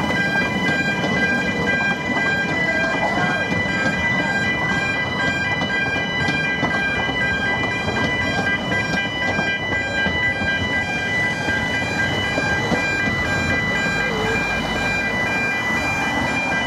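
Level crossing warning alarm sounding continuously as a steady, high electronic tone, over the low rumble of the narrow-gauge train's carriages passing. A car goes by near the end.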